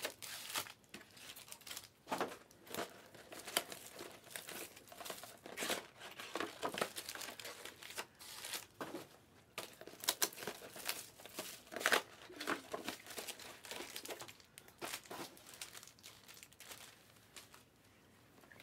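Cellophane wrapping and foil card packs of a Panini WWE Select hobby box crinkling and tearing as the box is opened and the packs handled. The sound comes in irregular rustles with light clicks and dies away near the end.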